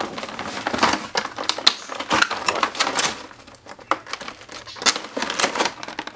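Clear plastic packaging of a diecast model truck crinkling and clicking as it is handled and worked open by hand, with a rustle of shredded paper packing.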